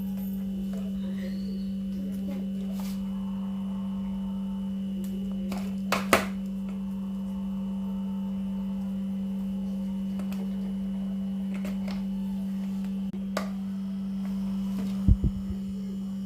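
Steady hum of a small electric fan motor, one even tone throughout, with a sharp click about six seconds in and a few louder clicks near the end.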